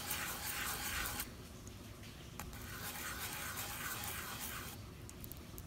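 120-grit sandpaper scuffing the glue side of a leather cue tip in a circular motion to roughen it for glue: a faint scratchy rubbing, louder for about the first second, with a couple of light clicks.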